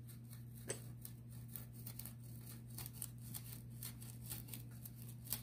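Cold Steel Finn Wolf folding puukko's scandi-ground blade carving a stick of pallet wood: a quick run of short scraping shaving strokes, with a sharper click about two-thirds of a second in. A steady low hum runs underneath.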